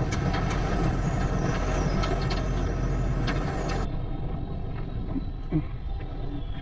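An engine running steadily with a few sharp clicks and knocks over it; the sound changes abruptly about four seconds in.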